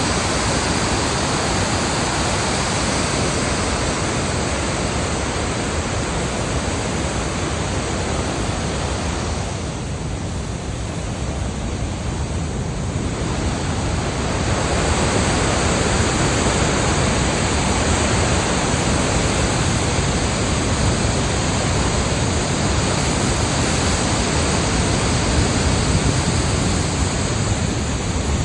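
Steady, loud rushing of water pouring over a dam, an even roar with no engine note, easing slightly about ten seconds in before building back up.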